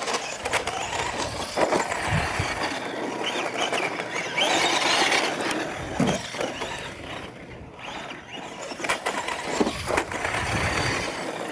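Radio-controlled model trucks racing over a dirt course: a continuous noisy rush of their motors and tyres on the dirt, loudest about halfway through, with several sharp knocks as they go over the small ramps.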